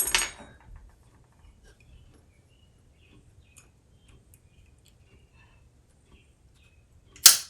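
Small metal parts of a Rock-Ola 449 jukebox popularity meter being handled. There is a sharp metallic click at the start, faint scattered ticks and taps through the middle, and another sharp click near the end.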